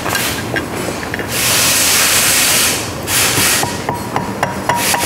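Hammer tapping at the gear plate of a mud motor transmission to drive out the old seal: a run of quick metallic taps with a ringing tone in the second half. Before the taps come two long stretches of hissing.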